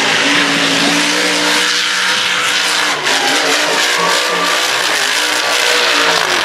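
Mega mud truck engine running at high revs at full throttle, with a noisy rush over the engine note and a brief break about three seconds in.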